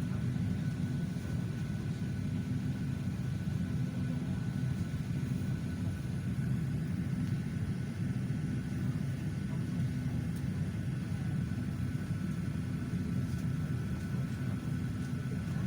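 Steady low hum inside an airliner's cabin at the gate, with a faint high whine held on one note.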